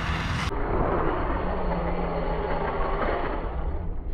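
Arrma Kraton EXB RC monster truck being driven hard: its brushless electric motor and drivetrain run steadily, with a low hum showing in the middle.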